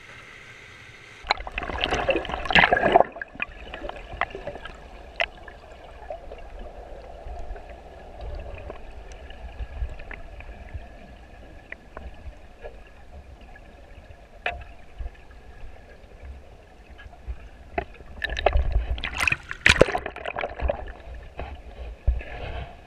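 River water splashing and gurgling around a kayak, with two louder spells of splashing, one about a second in and one near the end, and scattered clicks of water or paddle in between.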